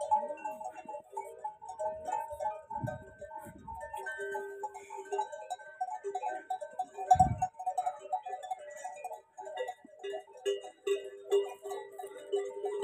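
Neck bells on a walking herd of dromedary camels clanking and ringing irregularly at a few fixed pitches, with a few low thumps, the loudest about seven seconds in.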